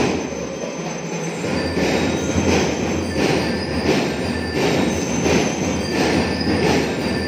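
Drum-and-lyre band music for a majorette routine: drums beating steadily about twice a second under ringing metallic bell-lyre tones, with crowd noise beneath.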